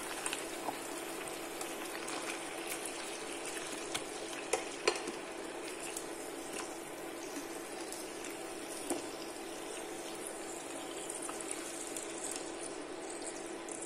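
Haddock fillets sizzling steadily as they fry in hot vegetable oil in a pan, with a few sharp clicks as metal tongs turn the fillets over.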